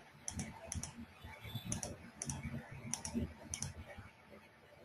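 Computer keyboard clicking: about six short double clicks at irregular intervals, as keys are pressed.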